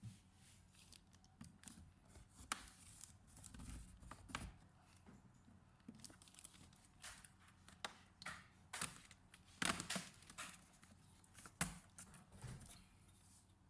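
Faint, irregular clicks, taps and light rustling from handling a laptop and its small parts, with a few sharper knocks about ten and eleven and a half seconds in.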